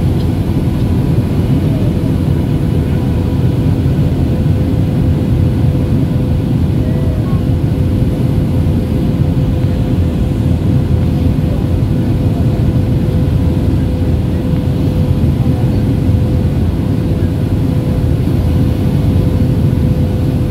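Cabin noise of a Boeing 737-800 in flight, heard from a window seat over the wing: a loud, steady rush of airflow and CFM56 turbofan engine noise with a faint steady hum riding on it.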